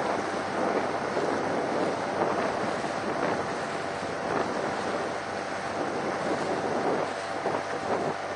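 Wind buffeting the microphone over water rushing and slapping along a small boat in choppy water, with a faint steady motor hum underneath.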